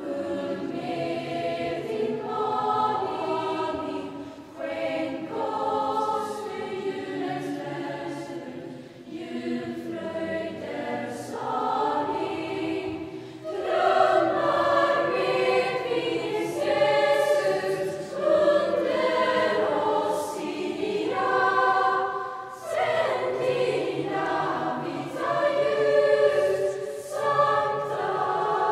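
A Lucia procession choir of schoolchildren singing, the singing growing louder about halfway through.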